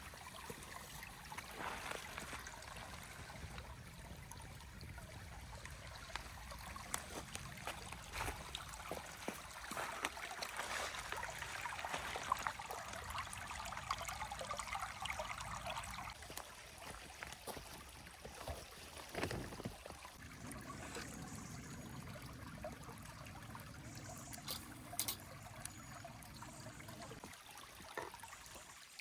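Water trickling steadily, like a small stream, with scattered clicks and knocks over it.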